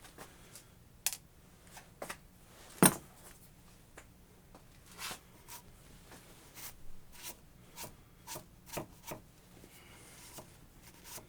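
Hand tools and small metal parts being handled while working on an angle grinder: scattered light clicks, taps and short scrapes, with one sharp click about three seconds in.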